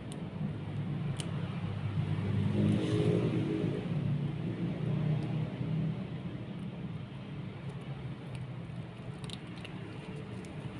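Kitten chewing a hard catfish head, with a few sharp crunching clicks, over a low steady rumble that swells about two seconds in and fades again.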